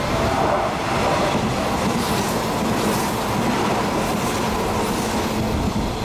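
A Hanshin electric multiple-unit train on a through limited express runs through a station at speed without stopping. Its wheels clatter rhythmically over the rail joints, with a steady whine above the running noise.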